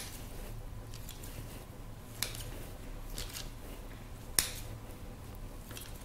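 Kitchen scissors snipping into soft bread dough: three sharp snips about two seconds apart, with fainter snips between them, over a faint steady hum.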